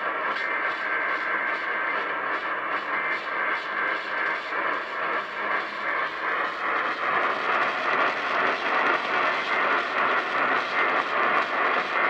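Radio reception of an Emergency Alert System required weekly test coming through as heavy static and hiss, with a regular pulsing of interference about three times a second. The poor reception buries the test audio in noise.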